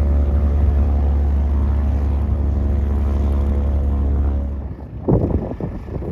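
Propeller aircraft's piston engine running with a steady low drone, dying away about four and a half seconds in. Then wind buffets the microphone in irregular gusts.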